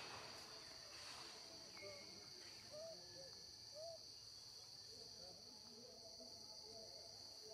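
Faint, steady high-pitched drone of an insect chorus, with a few short, soft calls rising and falling about three and four seconds in.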